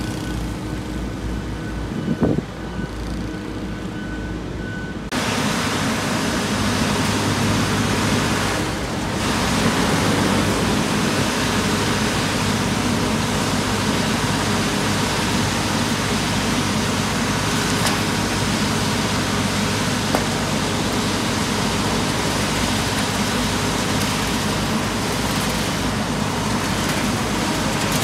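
A motorcycle passes on the street. About five seconds in, the sound switches to the steady, loud running of an XCMG RP803 asphalt paver's diesel engine while a dump truck tips asphalt into its hopper.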